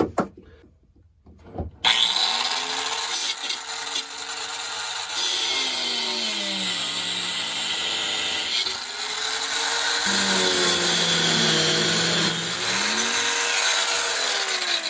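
Oscillating multi-tool cutting into the seized retaining nut of an old knot-meter through-hull. It starts about two seconds in and runs steadily, its pitch dipping and rising as the blade bites.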